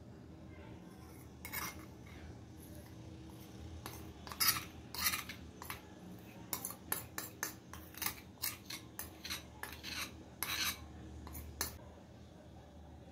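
Metal spoon scraping and clinking against a ceramic bowl as thick melted dark chocolate is pushed out of it: a run of short, irregular scrapes and taps, busiest in the middle.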